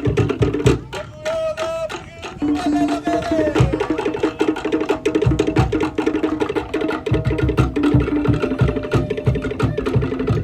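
Cook Islands drum ensemble playing a fast, driving rhythm: rapid interlocking strikes on wooden slit log drums over deep bass drum beats. The bass beats drop out for a moment about a second in.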